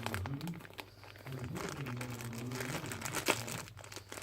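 Parcel packaging crinkling and rustling in irregular crackles as it is handled and pulled at to get it open, with one sharp crackle about three seconds in.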